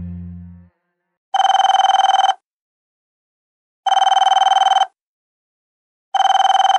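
Telephone ringing with a trilling ring, three rings about two and a half seconds apart: an incoming call.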